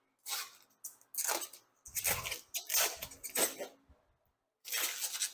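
Protective plastic film being peeled back from the edge of a tinted golf-cart windshield panel in a series of short, hissy pulls, about seven in all.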